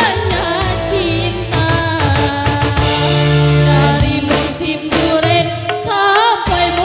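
Dangdut koplo music: a wavering, ornamented melodic line over drums and a steady bass.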